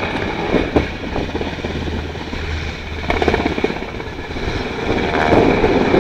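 Sikorsky UH-60 Black Hawk helicopter flying low in banking turns: steady rotor and twin-turbine noise with a rapid rhythmic blade thump that swells about three seconds in and again near the end.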